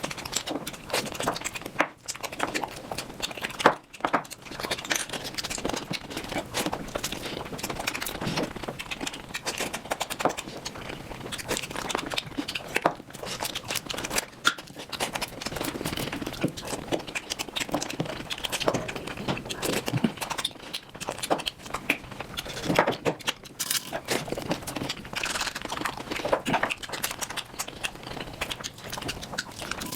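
Close-miked eating of mutton nalli (mutton shank on the bone), sped up: a dense, unbroken run of chewing and crackling mouth clicks.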